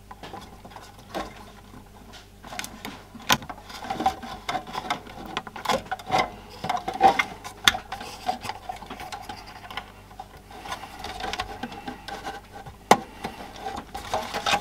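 Hands handling and fitting together the plastic cabinet and circuit board of a small portable CRT TV: irregular clicks, knocks and rubbing of plastic parts and wiring.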